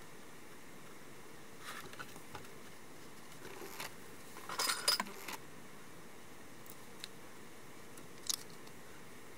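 Small clicks, rustles and clinks of modelling tools being handled and set down on a work table, with the loudest cluster about halfway through and a single sharp click near the end, over a steady faint hiss.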